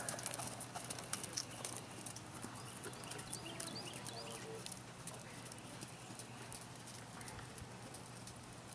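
A horse's hooves trotting on the sand footing of a dressage arena: soft, irregular hoofbeats, clearest at first and fading as the horse moves away.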